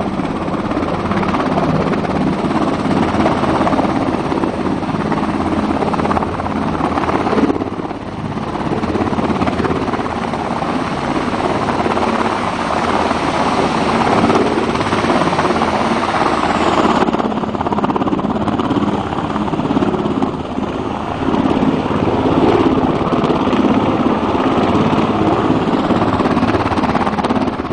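US Coast Guard MH-60 Jayhawk helicopter hovering low over water: loud, steady rotor and turbine noise with a fast, regular beat of the blades, easing slightly for a moment about eight seconds in.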